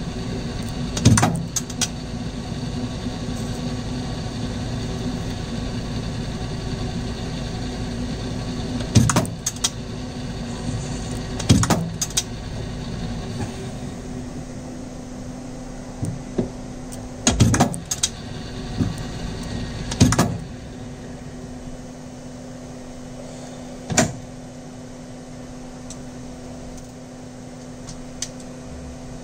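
Metal lathe running steadily, with sharp metallic clicks and clanks from tooling being handled against the tailstock and the work. The running noise drops to a quieter, steady hum about halfway through.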